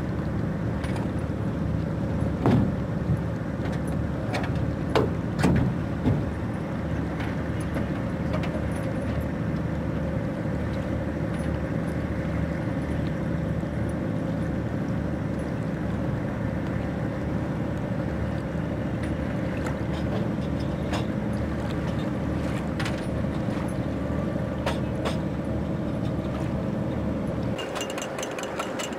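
Motorboat engine running steadily at a constant pitch, with a few sharp knocks between about two and six seconds in. The engine sound drops away near the end.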